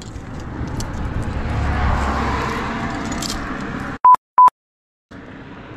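Two short, loud censor bleeps, a steady beep tone, a little after four seconds in, cut into dead silence: edited-in bleeps covering swearing after a finger was pinched by the magnet. Before them a rushing noise with low rumble swells and fades.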